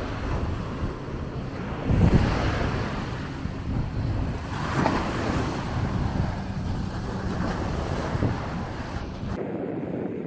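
Small waves breaking and washing up on a sandy beach, with wind buffeting the microphone. The surf swells and eases, loudest about two seconds in and again near five seconds, and near the end the sound changes to a thinner, quieter background.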